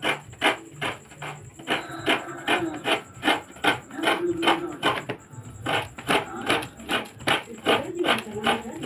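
Coconut being scraped on a hand grater: regular rasping strokes, about three a second, with a short pause about five seconds in.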